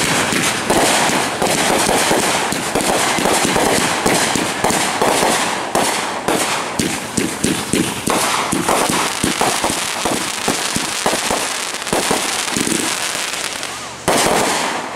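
Ground-launched fireworks firing a rapid, dense barrage of shots and popping bursts, with a fresh loud burst near the end.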